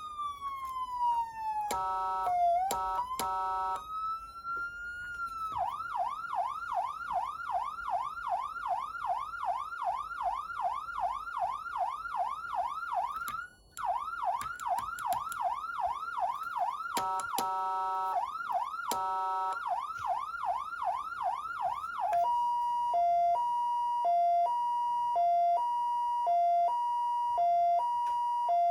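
Federal Signal PA300 electronic siren amplifier cycling through its tones: a falling wail, then short buzzy horn blasts, then a fast yelp of about four sweeps a second broken twice more by horn blasts. About 22 seconds in it switches to hi-lo, alternating high and low notes about once a second.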